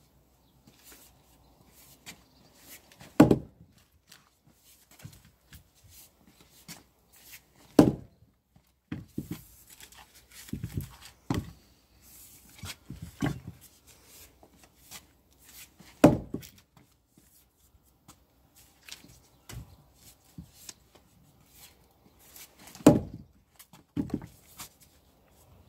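Splitting maul striking a big firewood round on a chopping block: four heavy whacks several seconds apart, with lighter knocks and taps between as the maul is worked in and out of the wood.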